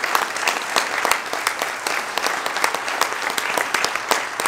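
Audience applauding steadily: many hands clapping at once in a large room.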